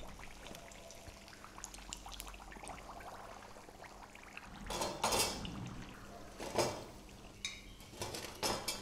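Fried samosas lifted out of hot oil in a steel kadai with a wire-mesh strainer: faint crackle of the frying oil, then a few metal scrapes and clinks of the strainer against the pan and a steel plate, the loudest about five seconds in.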